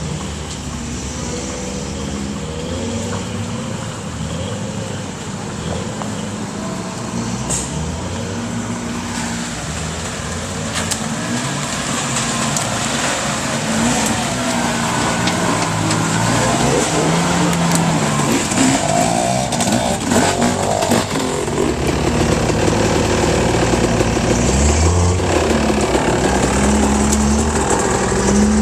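Four-wheel-drive truck engine working off-road, its revs rising and falling. It grows louder about halfway through.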